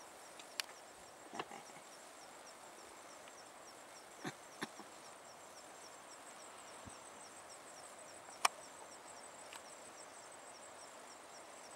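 Insects chirping steadily in an even, rapid high-pitched pulse of evening bush ambience, with a few sharp clicks and snaps scattered through, the loudest about eight and a half seconds in.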